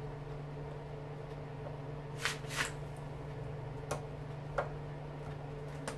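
A few light clicks and taps of a screwdriver working at an electric lawnmower motor's brush holder and screws, over a steady low hum.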